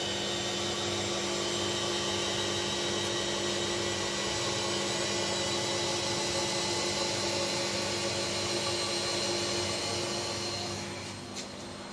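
Washing machine motor running steadily at full speed, a loud whirring hum with a high whine on top. It winds down a little near the end, with a couple of clicks.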